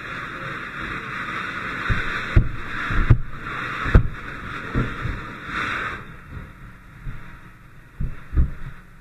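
A steady hiss that stops about six seconds in, with several dull knocks and bumps scattered through it.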